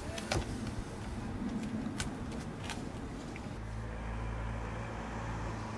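Scattered light clicks and taps as a wooden cockpit coaming is handled on a skinned kayak, over outdoor background noise. About three and a half seconds in, a steady low mechanical hum starts and holds.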